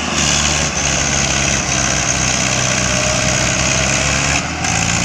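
Diesel engines of two farm tractors, an L&T New Holland and a Mahindra Arjun, running hard under load as they pull against each other on a chain in a tug-of-war. The engine note is loud and steady, with a short dip about four and a half seconds in.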